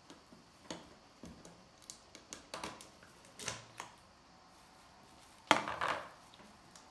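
Scattered light clicks and taps of kitchen things being handled while tart dough is pressed into pans, with one louder knock or clatter about five and a half seconds in.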